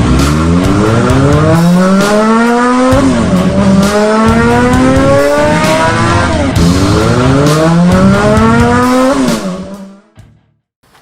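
Car engine revving up in long rising sweeps, dropping in pitch and climbing again about every three seconds as if shifting up through the gears, then fading out near the end.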